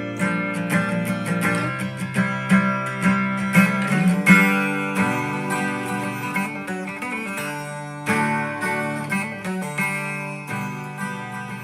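A song playing through a homemade Bluetooth boombox speaker: a guitar-led instrumental passage with no singing.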